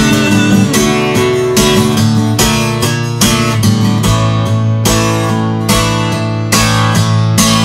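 Acoustic guitar strummed in a steady rhythm, the chords changing every second or so, with no singing.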